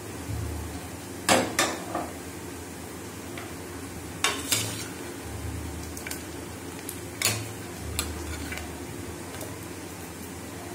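Metal ladle stirring and scooping boiled goat trotters in an opened pressure cooker, knocking against the pot in several sharp clinks, spaced irregularly a second or more apart.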